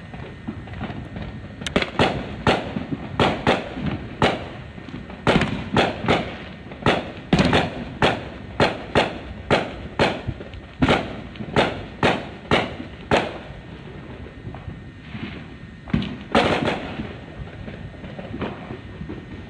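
Fireworks going off in rapid succession, sharp bangs at about two a second for some ten seconds. A quieter stretch follows, then one last louder burst near the end.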